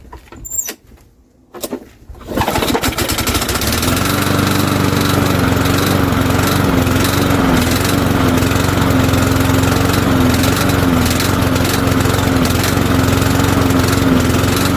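Cub Cadet push mower's 173cc MTD PowerMore engine starting on a spray of starting fluid about two seconds in, then running steadily with a slight waver in pitch. It sounds normal, without its clanging.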